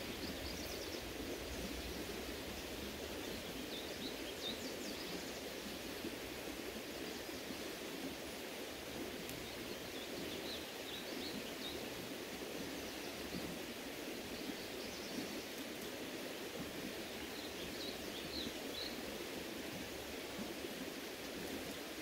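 Creek water running steadily, with small birds chirping in short runs about five times, every few seconds.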